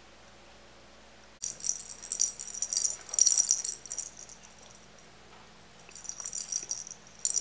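A small bell in a cat toy jingling in bursts as kittens bat it about, starting suddenly about a second and a half in and returning near the end.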